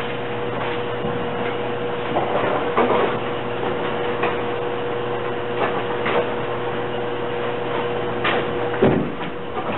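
Bowling alley din: a steady hum with scattered knocks and clatter of balls and pins from the lanes, and a deeper thump near the end.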